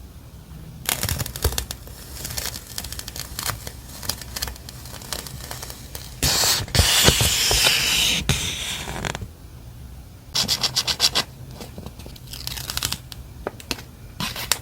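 Stationery packaging handled by hand, paper and plastic rustling and tearing with small clicks. A longer tear runs for about three seconds midway, and a quick run of short rasps follows soon after.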